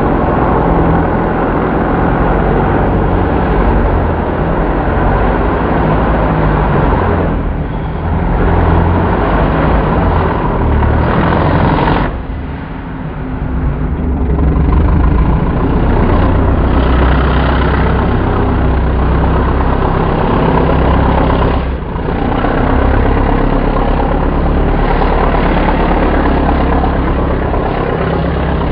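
Twin-turbocharged 5.3-litre LS V8 of a rock bouncer buggy revving hard under load on a steep climb, the engine note rising and falling with the throttle and briefly dropping off three times.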